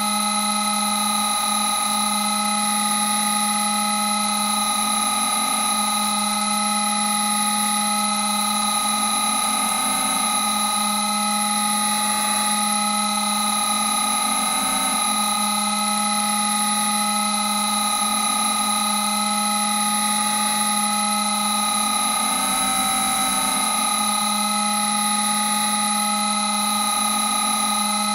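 Eerie synthesized drone sound effect: several steady tones stacked from low to high, held at an even level with a slow waver.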